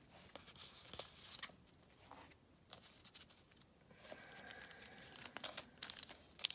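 Faint crinkling and tearing of a foil trading-card booster pack wrapper being handled and torn open, with small clicks of cards being handled.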